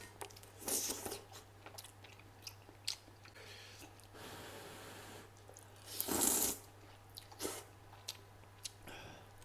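A person eating noodles close to the microphone: chewing and slurping wide starch noodles and instant noodles from a spicy soup. There are wet clicks throughout, and hissing slurps about a second in and, loudest, around six seconds.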